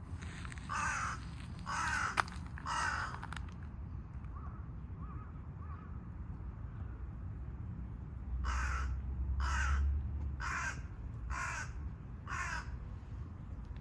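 Harsh bird calls: three in quick succession, then after a pause of about five seconds, five more about a second apart.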